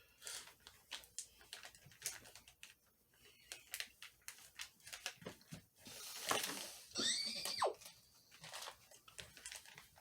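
Plastic toy packaging crinkling and tearing in short crackles as a toy is unwrapped, with a brief high squeaky sound falling in pitch a little past the middle.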